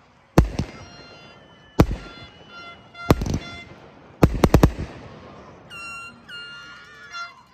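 Aerial fireworks shells bursting: loud single bangs about every second and a half, then a rapid run of four or five bangs a little past the middle, with crackling between them. Near the end come a few short, steady high-pitched tones.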